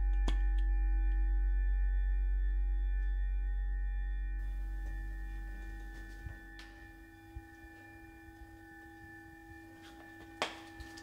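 Sound-design drone for a film scene: a deep low rumble that fades away over the first six or seven seconds, under several steady high ringing tones that hold throughout. A few soft clicks come in the second half, the sharpest near the end.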